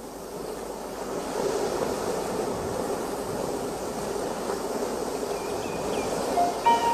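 Steady rush of ocean surf, swelling in over the first second and then holding. A few musical notes enter near the end.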